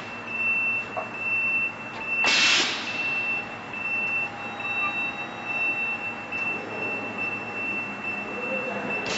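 Belt and chain conveyor production line running, with a steady high-pitched tone throughout and a short burst of hiss about two and a half seconds in.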